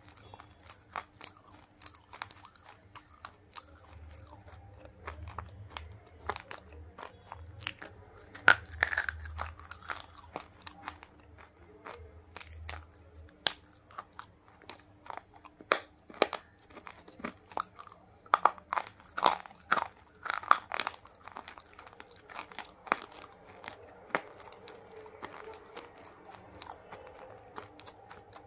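Close-miked crunching and chewing of a dry, chalky pink bar: many sharp, crisp crunches coming in clusters between quieter chewing.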